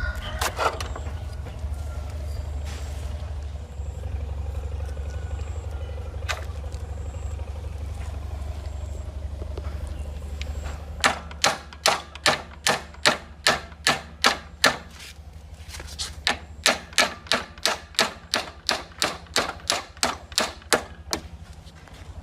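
Steady low hum with a few isolated clicks, then sharp, evenly spaced hammer taps at about three to four a second, in two runs of several seconds with a brief pause between them.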